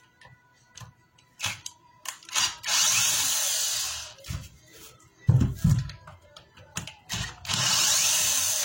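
Bosch GWS 22-180 angle grinder switched on twice, running for about a second and a half each time, the first run fading as it winds down. Knocks and clicks of handling sound between the runs.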